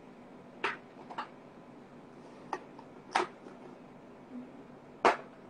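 About five sharp knocks and clicks of small plastic paint bottles and craft tools being picked up and set down on a tabletop as it is cleared; the loudest knock comes near the end.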